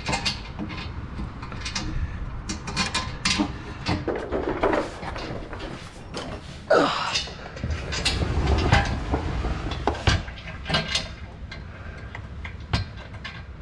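Scattered metallic clinks and knocks of hand tools and car parts being handled during work on the car, with a few louder thumps.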